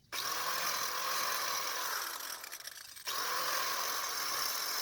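Power grinder grinding steel: cutting through the staked collar of a rear axle nut. Two stretches of steady grinding with a short let-up about three seconds in.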